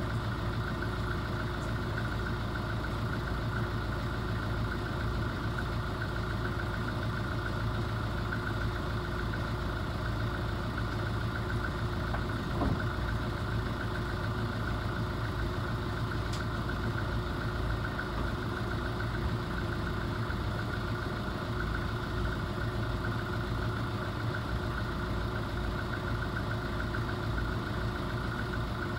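Motor cruiser's inboard diesel engine idling steadily, heard from inside the wheelhouse, with one short sliding noise about halfway through.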